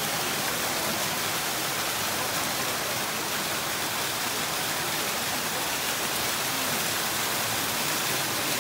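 Small waterfall pouring into a rock pool: a steady rush of falling and splashing water.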